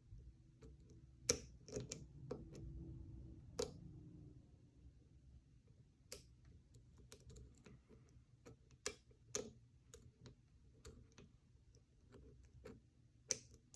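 Faint, irregular clicks and light scraping of a thin 0.015-inch lock pick and tension tool working the pins inside a five-pin tumbler lock, with a few sharper clicks scattered through.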